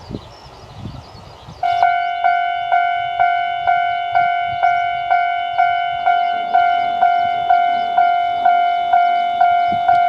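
A railway level-crossing alarm starts ringing about two seconds in: a steady repeating bell-like tone, struck about twice a second. Before it, wind noise.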